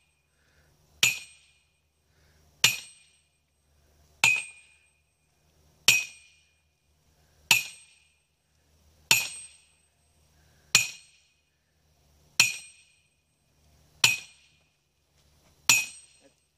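A sledgehammer driving a steel greenhouse ground post into the ground by brute force: ten blows about a second and a half apart, each a sharp metallic clang that rings briefly.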